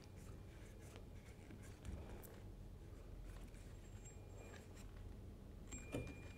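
Faint clicks, small knocks and scraping from hands fitting a RAM ball mount and arm onto a kayak's side rail, over a low steady hum. The loudest knock comes about six seconds in.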